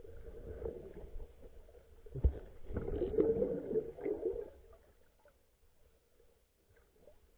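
Muffled underwater sound of water moving against the microphone, with a sharp knock about two seconds in and a louder churning stretch after it, dying down to a faint hush in the last few seconds.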